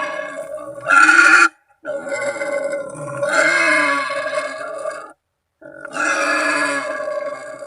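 Wild boar squealing in long drawn-out calls, three in a row with short silent gaps: a boar calling to companions or rivals, as used for hunting lures.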